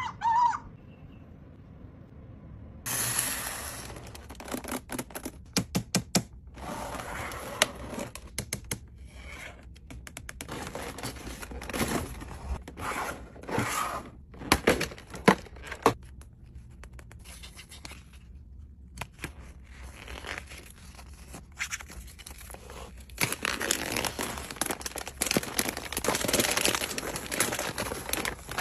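Toy packaging being handled and torn open: bursts of tearing, crinkling and scraping, with many sharp clicks and a brief pause about two thirds of the way through.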